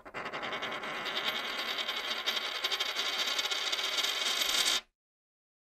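Logo animation sound effect: a dense, high shimmer of many rapid ticks, like a spill of coins, held at a steady level and then cutting off suddenly near the end.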